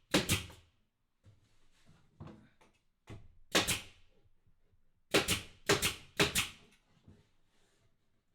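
A few sharp knocks, one near the start, one a few seconds in and three in quick succession past the middle, with fainter clatter of handling between them.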